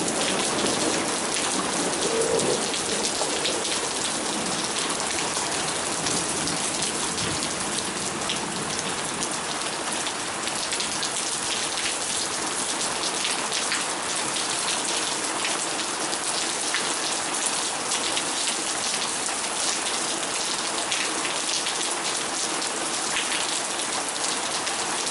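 Heavy thunderstorm rain pouring steadily, a dense patter of drops hitting surfaces. The last of a thunder rumble dies away in the first few seconds.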